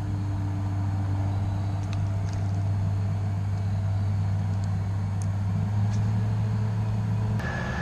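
A motor vehicle's engine running steadily close by, a low even hum, with a few faint ticks over it. Near the end the sound changes abruptly and a steady higher tone joins.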